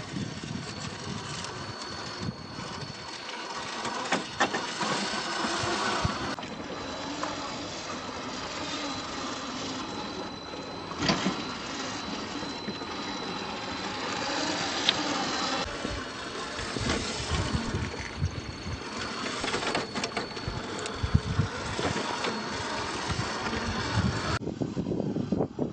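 Radio-controlled scale Willys jeep driving off-road: its small motor and gearbox whine steadily with a thin high tone, with a few sharp knocks from the terrain.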